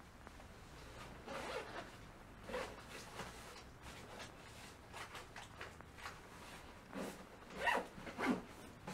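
Clothes rustling with a run of short zipper rasps, the two loudest close together near the end, as someone dresses to go out.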